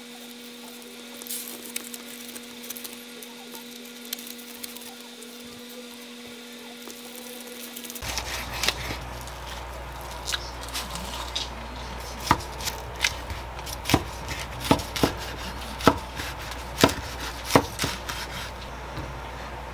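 Kitchen knife slicing a rolled seaweed gimbap on a wooden cutting board: a run of about ten sharp knocks, roughly two a second, in the second half, as the blade cuts through the crisp seaweed and strikes the board. Before that, soft rustling as the roll is shaped by hand.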